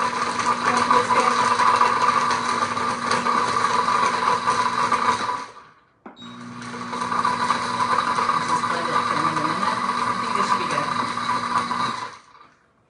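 Countertop blender running on a load of ice and milk, a steady whir. It stops for about half a second around five and a half seconds in, starts again, and cuts off near the end.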